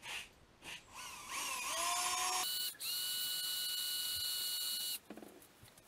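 Electric drill with a small bit, drilling out an already-tapped but not through-drilled boost port for the wastegate line. The motor spins up with a rising whine and runs steady, breaks off briefly, then runs again at a higher steady pitch and stops suddenly.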